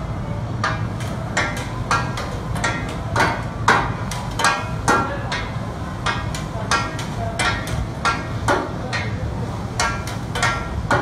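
Two metal spatulas striking and scraping a large flat-top griddle as a cook chops and turns food, an irregular run of sharp ringing metallic clinks a few times a second. A steady low hum lies underneath.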